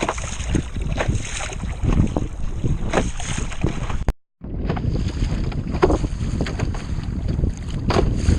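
Wind rumbling on the microphone and water splashing and slapping against the hull of a small foam Sea Snark sailboat under sail. The sound cuts out completely for a moment just after four seconds in.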